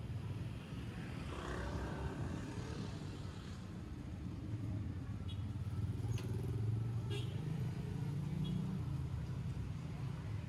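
Street traffic: car and motor-scooter engines running close by, a steady low hum that swells in the second half, with a few short clicks.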